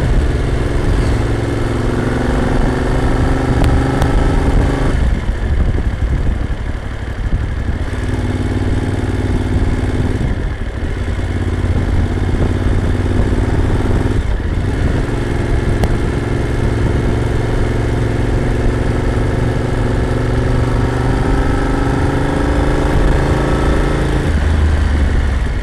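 Moto Morini motorcycle engine accelerating up the gears: its note climbs in pitch, breaks off briefly three times as it shifts, then makes a long rising pull before the throttle closes near the end. A steady low rumble runs underneath.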